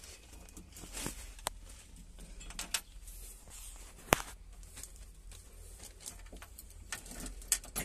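A few light clicks and rattles of the ignition key and cab controls being handled in a Sany excavator, with one sharper click about four seconds in; the engine is not yet running.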